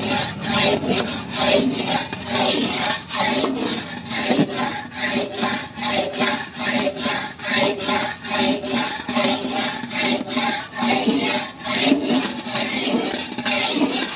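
Metal spatula scraping and stirring thick, grainy reduced milk around a large metal kadhai in rhythmic strokes, about two a second. The milk is being stirred steadily over low heat so the thickening kalakand mixture does not stick to the bottom of the pan.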